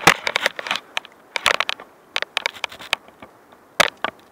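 Mountain bike riding over a dry dirt trail, heard as irregular sharp clicks and crackles that come in clusters.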